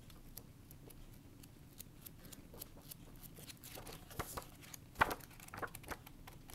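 Book pages being flipped through quickly: soft paper rustles and flicks, with a sharper page snap about five seconds in.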